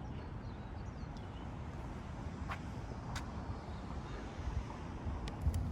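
City street traffic passing by, a steady low rumble of cars, with a couple of sharp clicks about two and a half and three seconds in.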